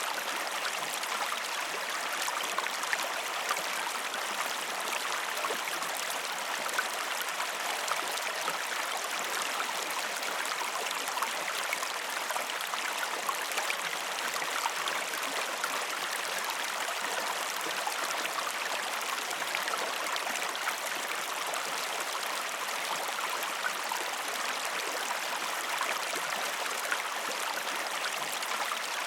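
Waterfall and its stream: water falling and splashing in a steady rushing hiss, with many small crisp splashes and no deep rumble.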